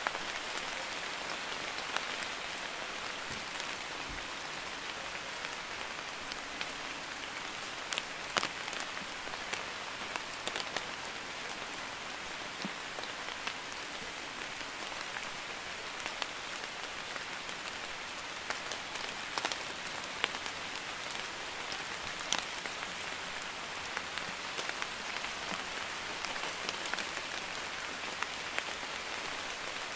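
Light rain (drizzle) falling steadily: an even hiss with scattered sharp ticks of single drops hitting a surface.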